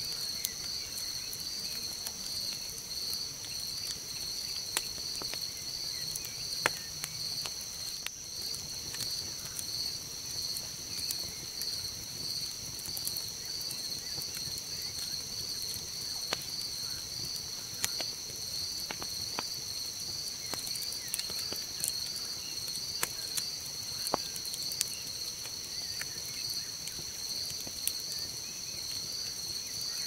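Crickets chirping in a steady, evenly pulsing chorus, with a campfire's burning embers giving scattered sharp crackles and pops.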